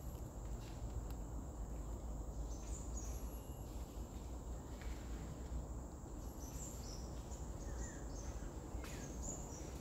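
Outdoor ambience: a steady low rumble under a continuous high-pitched insect drone, with short high chirps now and then, most of them in the second half.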